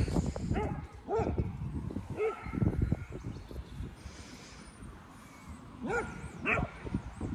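A small pet animal calling in a string of short, high, rising-and-falling cries: several in quick succession, a pause, then two more near the end.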